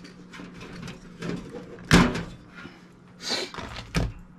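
Parts of a disassembled computer power supply and its cooling fan being handled: a few sharp knocks and clatters, the loudest about two seconds in and another just before the end, with a brief scraping rustle between them.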